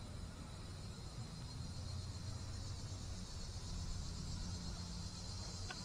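Faint, steady high drone of insects in summer trees, with a low rumble underneath.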